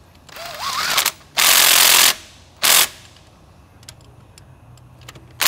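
A cordless power tool turns the bolts of a VW Jetta's shift tower through a socket on a long extension, in short runs. It builds up over the first second, runs for about two-thirds of a second, gives one brief burst, and then a few light clicks follow.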